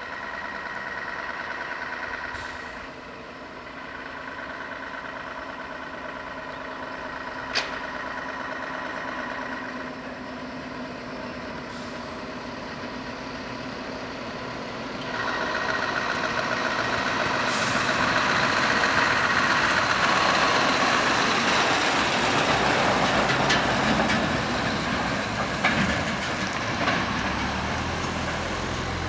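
Scania R500 tractor-trailer's V8 diesel running as the truck creeps closer at low speed, with a short sharp click about a quarter of the way in. About halfway through it gets clearly louder as the truck passes close by, then it stays loud while the truck pulls away.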